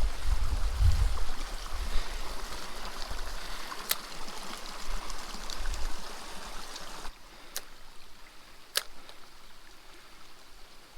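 Small mountain stream running steadily, with a few sharp clicks. There is a low rumble in the first second or so, and the water sound drops off abruptly about seven seconds in.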